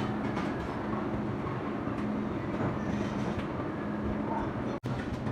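Machinery running with a steady hum and rumble. The sound cuts out for an instant near the end.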